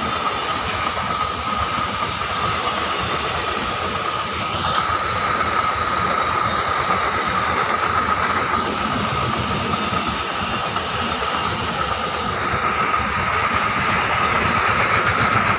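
Container freight train rolling past: a steady rolling rumble and rattle of the wagons' wheels on the rails, with a steady high whine running through it. It grows a little louder near the end.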